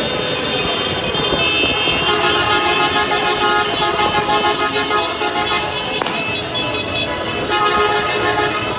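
Several car horns honking at once in celebration, their steady tones overlapping without a break.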